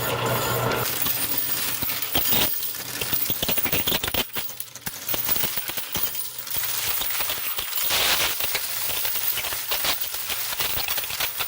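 Many quarters clinking and rattling continuously as they are counted.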